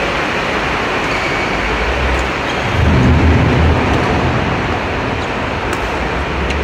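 Badminton rally: a few sharp racket strikes on a shuttlecock, mostly near the end, over a loud steady rushing noise, with a low rumble swelling about three seconds in.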